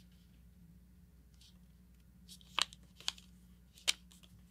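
A sheet of printer paper being folded and creased by hand: faint rustling with a few sharp paper crackles, three of them standing out in the second half.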